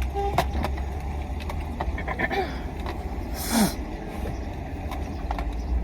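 Steady low rumble of a car idling, heard from inside the cabin, with a few small clicks and a short breathy vocal sound about three and a half seconds in.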